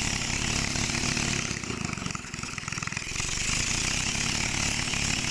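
A small engine running steadily, easing off briefly about two seconds in and then picking up again.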